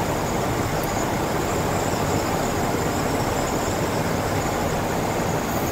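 Steady in-cab driving noise of a 1968 International Harvester 1100D pickup cruising at highway speed: its 345 cubic-inch V8 running evenly under road and wind noise, with no change in pitch or level.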